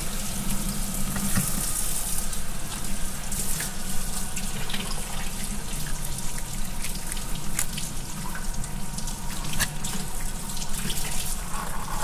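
A knife cutting through the head of a golden eye snapper (kinmedai) on a wooden cutting board, with a few sharp clicks and crunches through bone. Behind it is a steady rush like running water.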